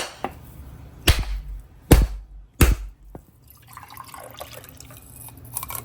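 Whole coconut being struck hard to crack it open: four heavy knocks in under three seconds. Then a quieter dribble of liquid, the coconut water running out of the split shell.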